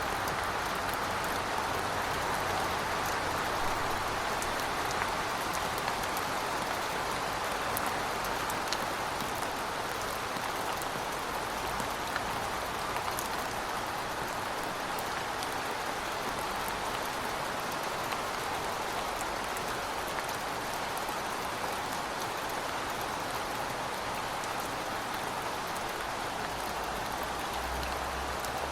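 Heavy rain falling steadily, a dense even hiss dotted with sharp ticks of single drops, and a faint low rumble now and then.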